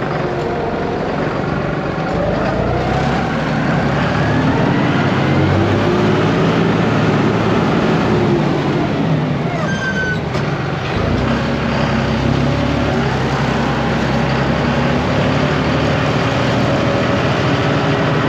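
Tractor engine running under load while scraping manure, its pitch rising and falling, with a short high squeal about ten seconds in.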